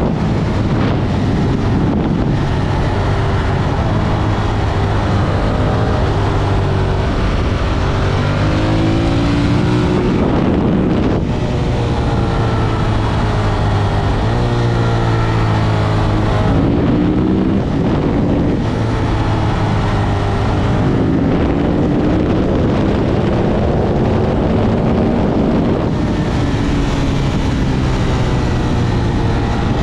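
Ducati Monster 1200 S's 1198 cc L-twin engine pulling hard on the road, its revs climbing and dropping several times as gears are changed, with wind rushing over the microphone.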